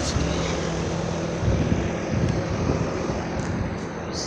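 Outdoor air conditioner or heat pump condensing unit running: a steady compressor hum under the rush of its condenser fan.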